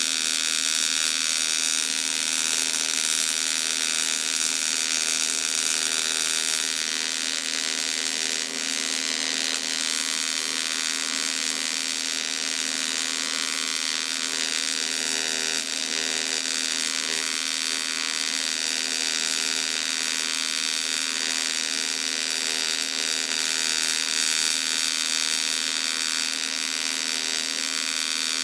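TIG welding arc burning steadily with a continuous electric buzz and hiss, as silicon bronze filler wire is fed into a cast iron casting: bronze welding, where the base metal is only heated and wetted, not melted.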